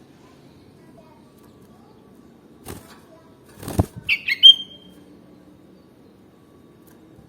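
Sooty-headed bulbul: a brief flutter of wings, then a short call of three quick notes, the last drawn out into a short steady whistle.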